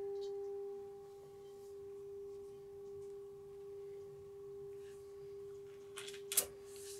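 A steady ringing tone from a sound-healing instrument, held on one pitch with fainter higher overtones, slowly swelling and easing in loudness. Near the end a few short clicks sound over it, one of them sharp and loud.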